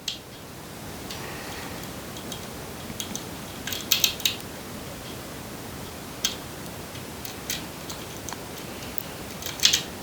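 Lock pick working the spool pins of a pin-tumbler lock held under tension: scattered small metallic clicks and ticks, with a quick cluster about four seconds in and another near the end.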